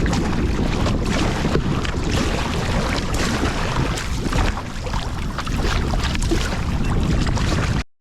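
Water sloshing and splashing against a kayak hull at sea, over a low rumble of wind on the microphone. It cuts out abruptly for a moment near the end.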